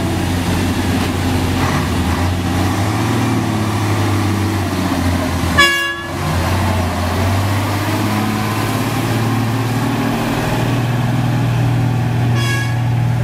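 Fuso self-loader truck's diesel engine pulling steadily under the load of an excavator. A short horn toot comes about halfway through and a fainter one near the end.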